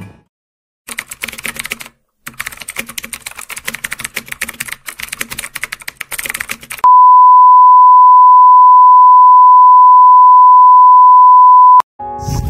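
Rapid clicking like keyboard typing for about six seconds, with a short break near the two-second mark. Then a loud, steady electronic beep tone holds for about five seconds and cuts off suddenly.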